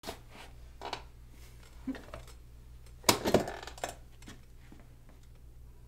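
A few light clicks and knocks over a low steady hum, with a louder cluster of knocks about three seconds in.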